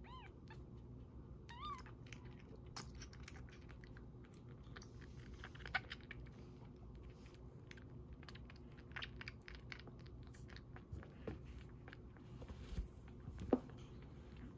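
Young kitten giving two short mews at the start, then suckling from a milk feeding bottle, with faint, irregular wet clicking and smacking from its mouth on the nipple.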